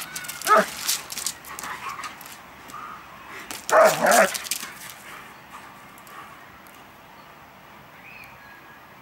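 Two Irish wolfhounds play-fighting, with barking in two short bouts: one just after the start and a louder one about four seconds in.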